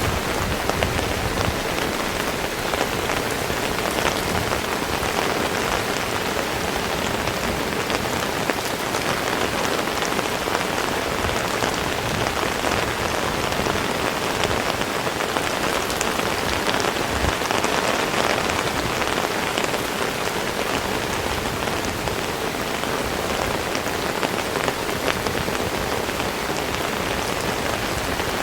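Heavy rain falling steadily, a dense even hiss speckled with countless small drop impacts.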